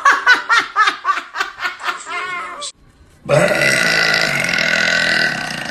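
Laughter in quick, even bursts that cuts off abruptly, then one long burp from a girl lasting about three seconds.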